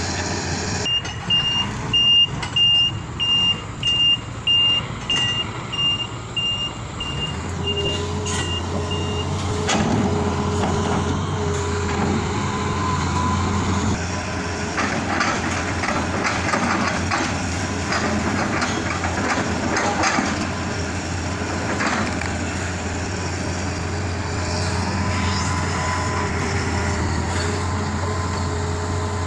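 A backup alarm beeps about twice a second for the first nine seconds or so, over the steady running of a diesel engine. From about seven seconds in, the Hitachi Zaxis 200 excavator's diesel engine runs with a heavier note under hydraulic load. Scattered knocks follow as the log grapple handles rubberwood logs.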